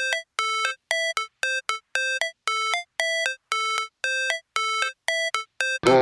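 Electronic background music: a repeating pattern of short synth notes, about two a second, before the full beat with bass and drums comes in near the end.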